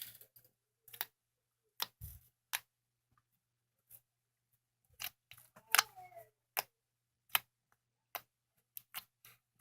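Crunchy slime giving sharp, irregular clicks and pops as it is pressed and handled, about a dozen, with a brief faint squeak near the middle.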